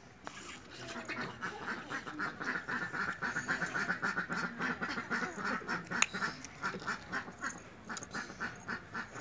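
Ducks quacking in a rapid, continuing run of short calls.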